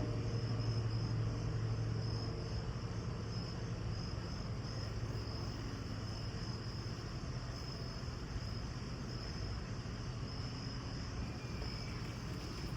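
Insects chirping: a high, pulsing trill that keeps going, over a low hum.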